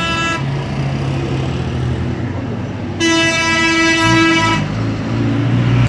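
A vehicle horn sounds in long, steady blasts. One held note cuts off just after the start, and a second blast about three seconds in lasts about a second and a half. Under both runs a steady low engine hum.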